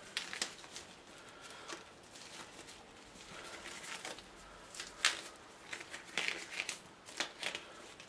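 A glove being pulled onto a hand: irregular rustling and crinkling with a few sharper clicks, the loudest about five seconds in.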